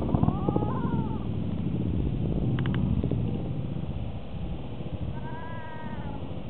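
Wind buffeting the microphone in an uneven low rumble, with two short rising-then-falling cries, one about a second in and one again around five seconds in.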